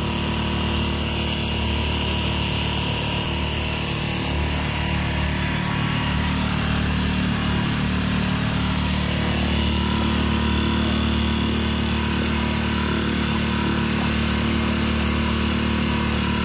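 Mercury 3.5 hp four-stroke outboard motor running steadily at an even pitch, with water rushing in its wake. The engine is new and is being run in.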